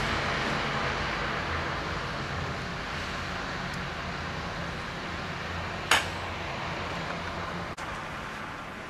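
Steady hiss of traffic on a slushy, snow-covered road, slowly fading, with one sharp click about six seconds in.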